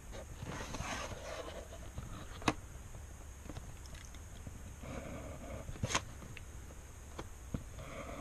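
Pen scratching along a ruler on paper as lines are drawn, with paper and ruler rustling as they are moved, and two sharp clicks a few seconds apart.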